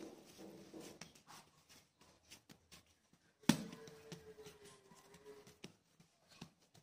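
Hands kneading and pressing bread dough on a silicone baking mat: faint soft pats and rubbing. About halfway there is one sharp knock, followed by a faint steady tone lasting about two seconds.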